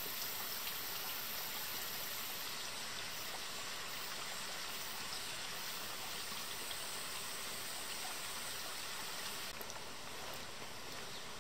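Small forest stream flowing with a steady rush, a little duller near the end.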